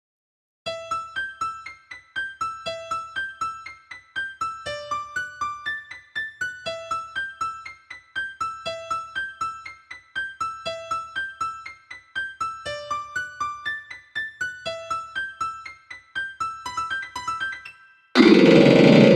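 MIDI rendition of a Sony Ericsson phone ringtone on an electric-piano sound: a short bright melody repeating about every two seconds. About a second before the end, a sudden much louder, dense wall of massed MIDI notes cuts in.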